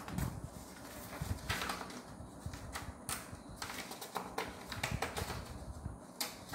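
Sheets of A4 copy paper being flipped and counted by hand one at a time: a quick, irregular run of crisp paper flicks and rustles, several a second.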